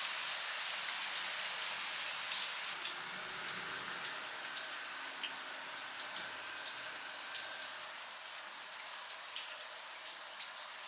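Rain falling, a steady hiss with many separate drops ticking and dripping onto nearby surfaces. The rain is easing off and grows slowly quieter.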